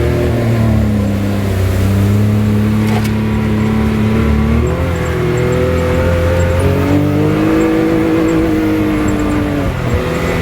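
Can-Am Maverick X3 side-by-side's three-cylinder engine running under load off road, its pitch shifting with the throttle: it dips about a second and a half in, climbs near the middle and drops back near the end. A sharp click about three seconds in.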